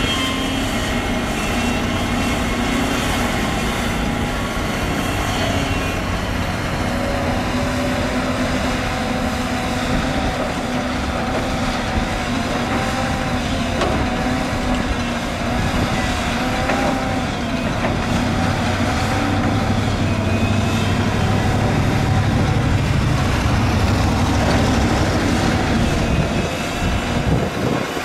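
Hydraulic excavator's diesel engine running steadily with a wavering whine over it. Past the middle the engine note deepens and grows a little louder for several seconds, then settles again near the end.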